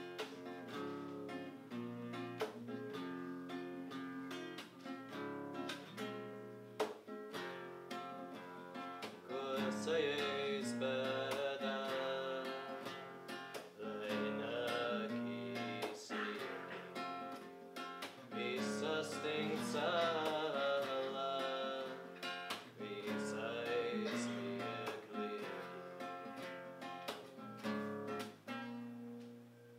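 Acoustic guitar being played, a steady run of picked and strummed notes, with a voice singing along in stretches from about ten seconds in.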